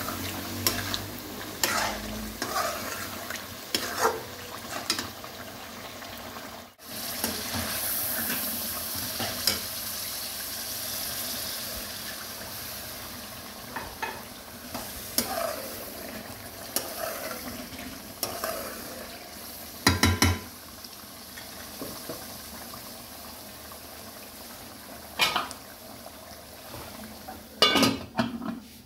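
Chicken and potato masala sizzling in an aluminium pan as a steel ladle stirs and scrapes it, with sharp metal clinks every few seconds. Near the end the aluminium lid clatters onto the pan.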